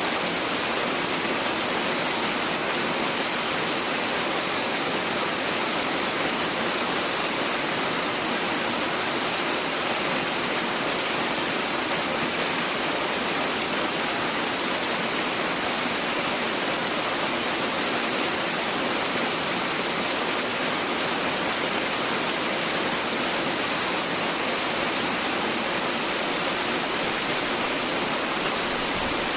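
Steady rush of a tall, many-tiered waterfall cascading over rock, an even, unchanging roar of falling water.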